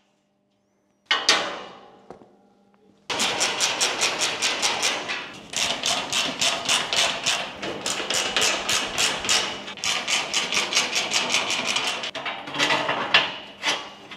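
Rapid, even knocking at several strikes a second, as of a hammer working on a motorcycle shipping crate. A single sharp knock comes about a second in, and the loudest strikes come near the end.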